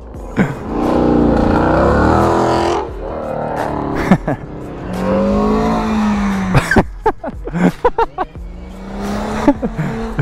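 Three cars accelerate past one after another, each engine note rising and then falling away as it goes by. The loudest pass is about a second in.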